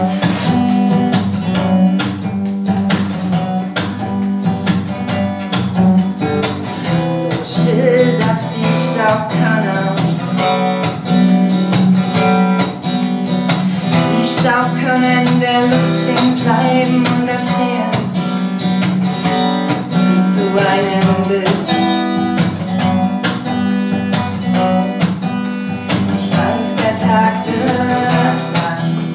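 Acoustic guitar strummed steadily, playing the chords and melody of a song.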